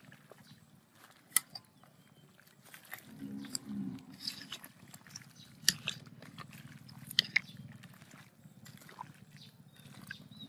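Metal ladle stirring vegetables in a stainless steel soup pot, with a few sharp clinks of the ladle against the pot. A soft low rumble runs under it, a little louder from about three seconds in.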